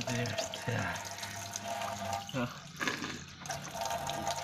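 Tap water running into a sink, with a man's short pained voice sounds over it as he reacts to a mouthful of cinnamon.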